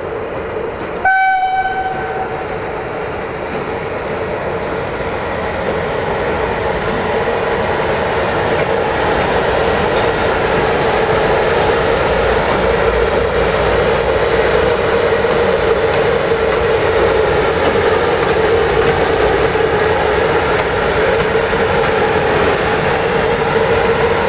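CFR 060-EA electric locomotive gives one short horn blast about a second in, then runs on with a steady hum and rolling noise that grows louder as it draws near.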